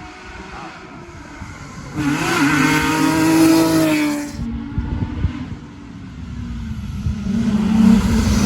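Rally car engine revving hard as the car goes by, loud for about two seconds starting about two seconds in, followed by a few sharp cracks. The engine note builds again near the end.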